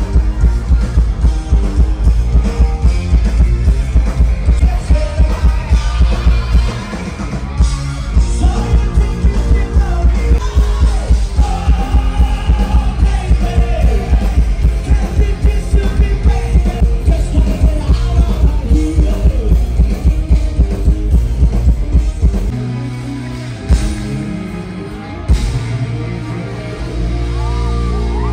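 Live rock band performing with a singer, a heavy thumping kick drum and bass driving a steady beat. About 22 seconds in, the drums and bass drop out and the music turns quieter.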